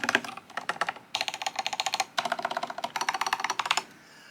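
IQUNIX OG80 Wormhole mechanical keyboard being typed on: a few scattered keystrokes, then three fast runs of rapid clicking, stopping shortly before the end.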